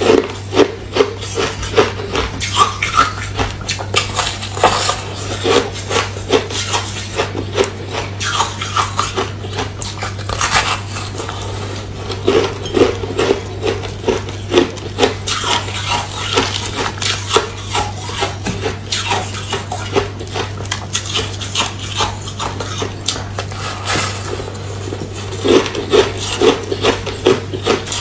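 A foam ice cake of freezer frost being bitten and chewed close to the microphone: rapid, crisp crunching, several crunches a second, coming in denser spells, over a steady low hum.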